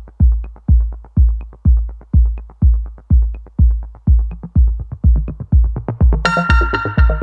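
Electronic intro music: a steady kick drum about two beats a second, joined about six seconds in by a bright synth chord.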